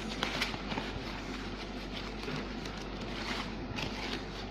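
Crinkly rustling of parcel packaging being handled and opened, with many small scattered clicks and crackles.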